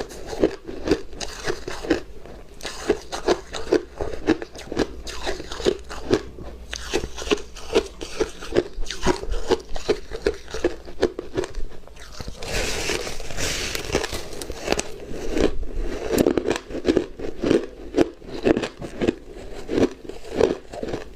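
A person chewing crunchy refrozen shaved ice close to the microphone, with sharp crunches coming about two a second. A little past the middle there is a denser stretch of crackling.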